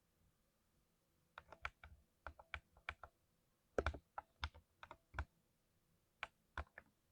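Mechanical keyboard with freshly lubed switches being typed on: irregular keystrokes begin about a second and a half in, with a quick cluster of louder strokes near the middle and a few spaced strokes near the end.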